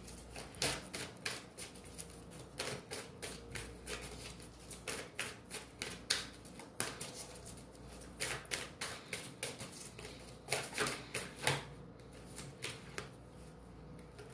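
A deck of tarot or oracle cards being shuffled by hand: a run of quick, uneven card snaps, several a second, growing sparser near the end.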